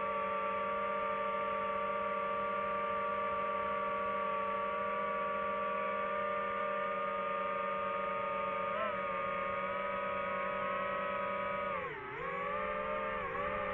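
Quadcopter drone's motors and propellers whining at a steady pitch. About twelve seconds in, the pitch and level dip briefly, then climb back as the drone changes its flight.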